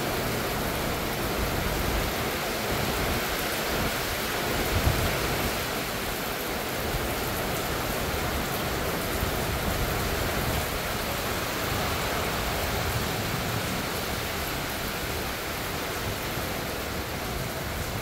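Steady summer thunderstorm rain, an even dense hiss. There is one brief low thump about five seconds in.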